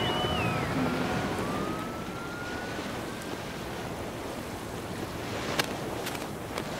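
Wind and water rushing past, with a few sliding high tones in the first three seconds: one falling and one slowly rising. Then a handful of sharp cracks near the end, the first the loudest.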